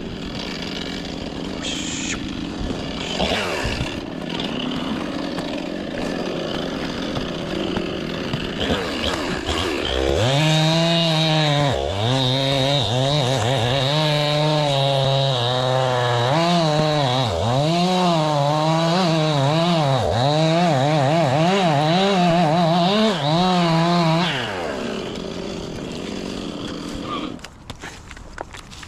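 Two-stroke chainsaw running at low speed, then opened to full throttle about ten seconds in. It runs high and hard for about fifteen seconds, its pitch dipping sharply several times, before it drops back near the end.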